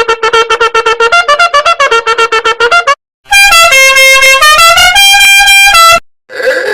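Meme sound-effect clips: a fast staccato run of pitched notes, then a loud blaring horn-like tune of held notes stepping up and down in pitch that cuts off suddenly, and another short tonal sound starting near the end.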